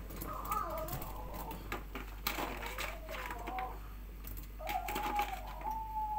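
Clicks and crinkles from a clear plastic food tub as green beans are picked out and dropped into a pot of broth. A high, wavering pitched sound comes and goes over them, held longest near the end.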